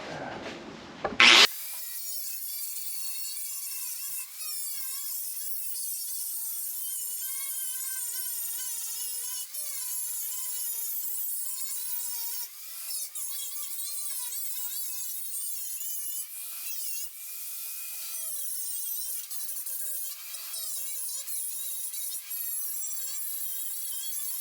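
Power tool with a wire wheel scrubbing paint off steel floor-pan panel, running steadily with a wavering pitch as the load changes and a few brief dips. The paint is being stripped to bare metal for plug welding. A loud click comes about a second in, just before it starts.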